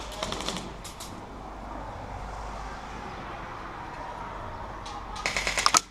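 A short, rapid burst of sharp cracks from an airsoft gun firing on full auto, about five seconds in, over a steady outdoor background hiss.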